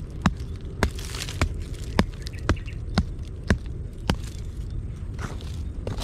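Repeated sharp knocks of hand work, about two a second and evenly paced. They fade to a few weaker knocks after about four seconds.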